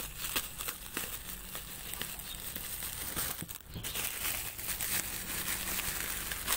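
Layers of clear plastic wrapping crinkling and crackling as they are pulled open by hand, with a short let-up about three and a half seconds in.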